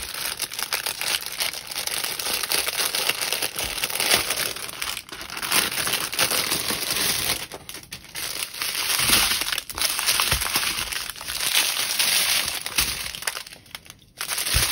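Plastic packaging crinkling and rustling as it is handled, with a few brief pauses.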